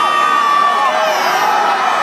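A large crowd cheering, with long, high-pitched held whoops and shouts above the general noise.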